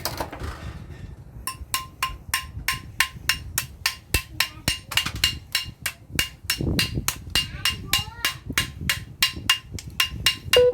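Rapid, steady hammer blows on the metal of a floodlight ballast, about four a second, each with a short metallic ring.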